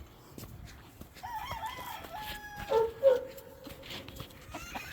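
A rooster crowing once: a stepped call that drops to a long, drawn-out lower note held for a couple of seconds.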